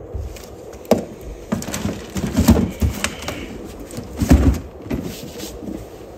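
Hollow knocks and clunks of gear being handled and set down in a boat, with two heavier thumps about two and a half and four and a half seconds in.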